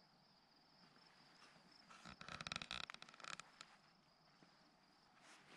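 A faint steady high trill of insects, with a rapid dry rattle starting about two seconds in and lasting about a second and a half.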